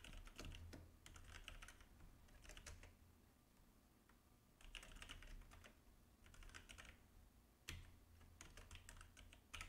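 Faint typing on a computer keyboard: runs of quick key clicks with short pauses between them, over a low steady hum.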